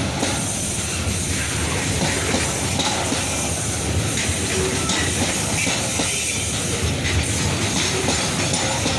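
Long freight train of open-top gondola wagons rolling past close by, its steel wheels running steadily over the rails.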